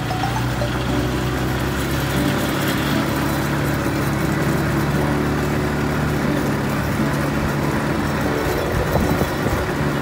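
ATV (quad bike) engine running at a steady pace over a dirt trail, a constant low engine drone mixed with rumbling tyre and wind noise.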